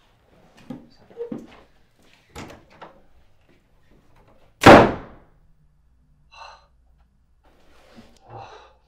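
A panelled wooden door slammed shut once, about halfway through, with a short ringing decay. Before it come a few lighter knocks and rustles.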